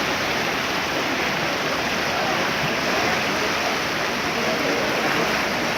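Flooded Bagmati river in spate: a steady, unbroken rush of fast, high water.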